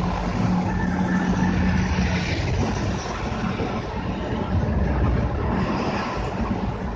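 Road vehicles in motion, with steady road and engine noise and a low engine drone that drops away about two seconds in.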